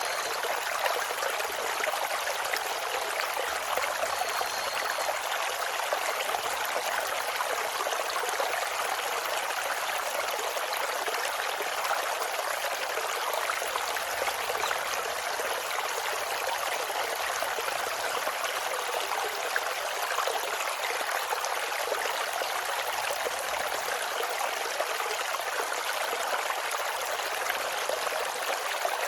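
Mountain valley stream flowing steadily, an even rushing and splashing of water.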